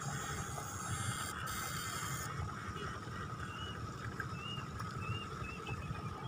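Open-air rice-paddy ambience: a steady low rumbling noise under a thin steady hum, with a few short chirps of a bird about halfway through.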